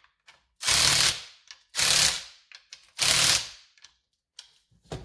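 Cordless impact driver with a socket hammering on a chainsaw's bar nuts, running them down to tighten the clutch cover: three short bursts of rapid hammering, each under a second, with pauses between.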